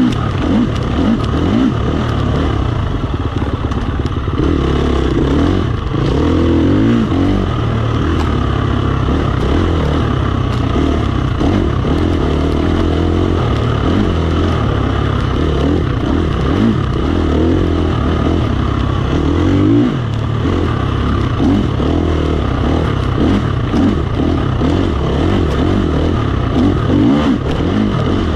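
KTM 350 XC-F dirt bike's single-cylinder four-stroke engine running hard on a trail ride, its pitch rising and falling over and over with the throttle.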